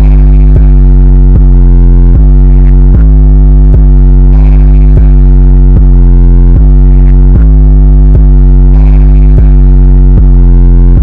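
Loud, bass-heavy electronic music: a deep, distorted synthesizer bass under sustained synth chords, with a sharp beat about every three-quarters of a second.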